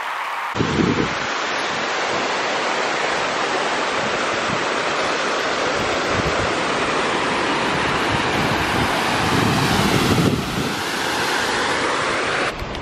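Wind buffeting the microphone: a loud, steady rush with irregular low rumbles. It starts abruptly about half a second in and breaks off near the end.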